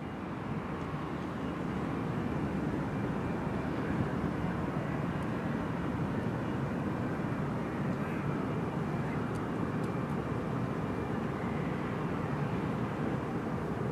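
Large cruise ship passing close by, a steady low rumble of its engines and machinery that swells over the first couple of seconds and then holds level.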